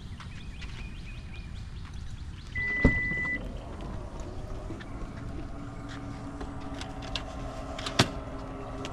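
Car cabin with a steady low rumble, a single short electronic beep and a thump about three seconds in, a steady hum setting in about halfway, and a sharp knock near the end.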